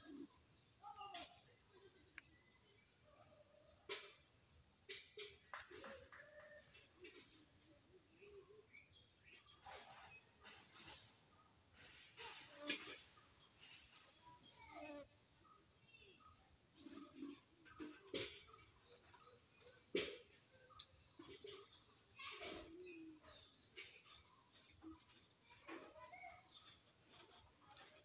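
Steady high-pitched chorus of insects, with faint scattered clicks and knocks; the sharpest clicks come about 4, 13, 18 and 20 seconds in.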